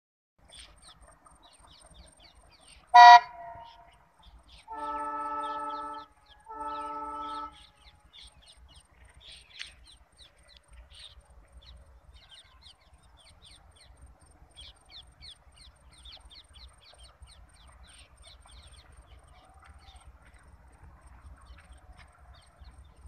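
Two blasts of a WDG-3A diesel locomotive's horn about five seconds in, the first just over a second long and the second slightly shorter. A single very loud, sharp, brief sound comes just before them, and birds chirp in the background.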